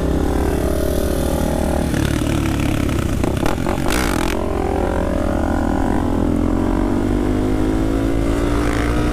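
Supermoto motorcycles running along at riding speed, heard from the rider's own bike with wind on the microphone. A short gust of wind noise comes about four seconds in, and in the last few seconds one engine's note climbs steadily as the bike accelerates.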